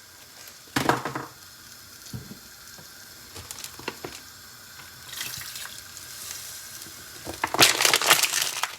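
Rustling and crackling noises: a short burst about a second in and a longer, louder stretch near the end.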